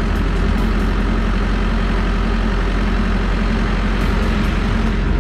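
Caterpillar backhoe loader's diesel engine running with a steady, unchanging low drone, heard close to the machine.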